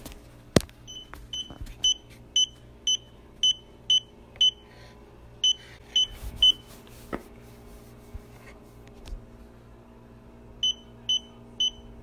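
Handheld Meterk EMF meter beeping: a run of short, high beeps about two a second, a pause of a few seconds, then three more beeps near the end. A few sharp clicks and knocks from the meter being handled.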